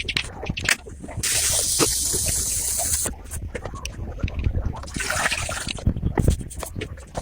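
Small clicks and taps of work on a watch, broken by two hisses: one about a second in, lasting about two seconds, and a shorter one about five seconds in.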